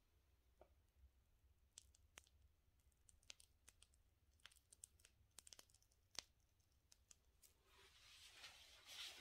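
Near silence, with faint scattered clicks and crinkles from a plastic piping bag being squeezed to pipe frosting, and a soft rustle near the end.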